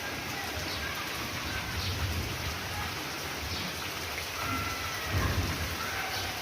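Steady hiss of rain falling, with low rumbles about two seconds and five seconds in.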